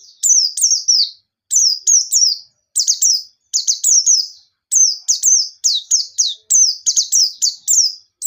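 White-eye (pleci) singing in rapid bursts: each phrase is three or four high chirps, each falling quickly in pitch, with about one phrase a second and short gaps between phrases.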